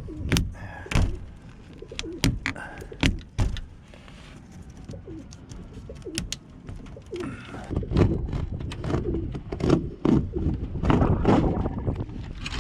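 Domestic pigeons cooing in their loft, with a series of sharp knocks and clatter throughout, typical of the coop's hatches and shutters being closed.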